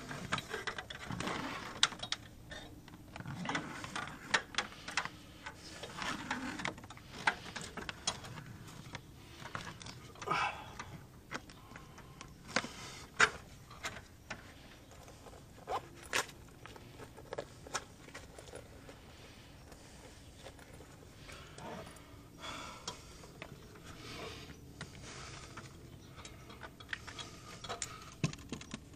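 Handling noises of coax cable installation work: scattered sharp clicks and knocks with rustling and scraping, the loudest two knocks about 13 and 16 seconds in.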